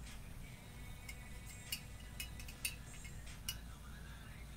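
About six faint, sharp clicks at irregular intervals over a low, steady hum.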